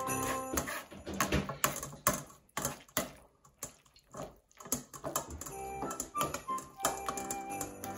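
A metal ladle clinking and scraping against a stainless mesh sieve as cooked vegetables are pressed through to strain the stock, in a run of sharp clicks. Background music plays at the start, drops out for a few seconds in the middle, and comes back about five and a half seconds in.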